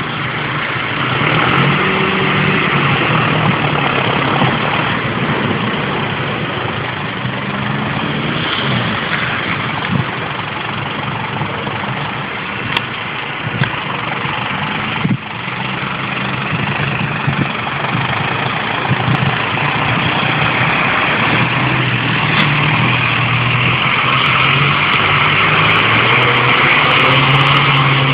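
Snow-plowing tractor's diesel engine running steadily as it drives with its front V-plow, getting louder toward the end as it draws close.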